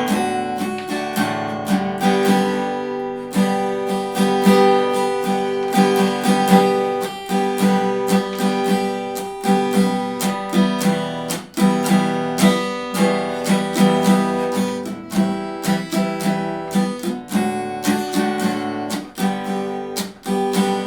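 Acoustic guitar strummed in a steady rhythm, chords ringing with sharp percussive muted strikes between them: the "hit" strumming technique, damped with the forearm instead of the hand.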